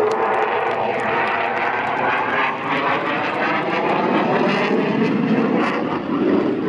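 Eurofighter Typhoon's twin EJ200 jet engines roaring steadily as the fighter flies an aerobatic display overhead.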